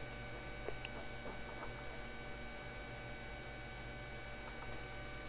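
Steady electrical mains hum with a faint high whine, the background noise of the recording setup, with a couple of faint clicks about a second in.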